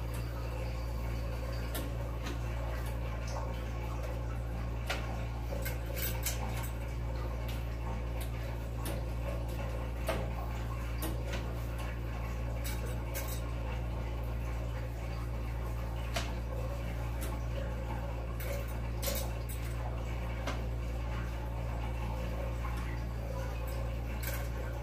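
Cloth wiping a bathroom mirror, with scattered light clinks and taps at irregular moments, over a steady low hum.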